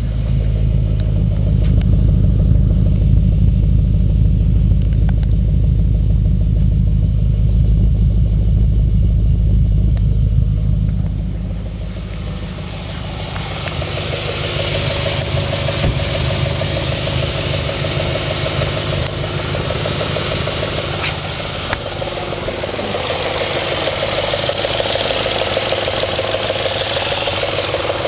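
2004 Audi S4's 4.2-litre V8 idling steadily, the idle in which the owner hears an engine knock. For about the first ten seconds it is a deep low running sound. After that the low end fades and a brighter, hissier running sound takes over.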